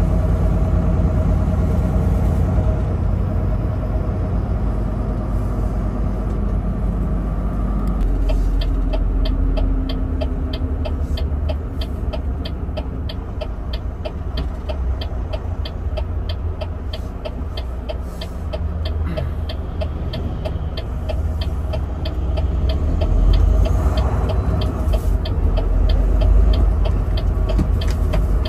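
Truck engine and road rumble, a steady low drone. From about eight seconds in, an even ticking joins it at about two clicks a second.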